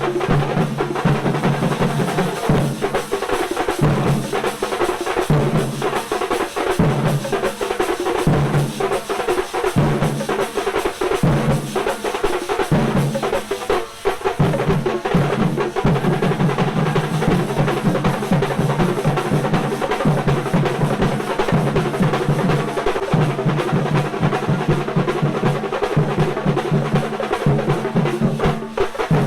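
Fast drumming in dense rolls, played in repeated phrases of about a second each.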